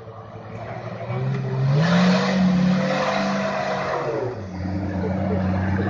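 Nissan Patrol GR Y60 4x4 engine pulling through deep mud: it revs up about a second in, holds high for a couple of seconds, then drops back to a lower steady note near the end, with the wheels churning and throwing mud while it is high.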